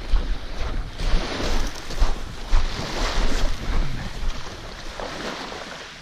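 Wind buffeting the microphone in low gusts, over a steady hiss of wind and gentle surf, with footsteps crunching on a shell-and-pebble beach about twice a second; the gusts ease after about four seconds.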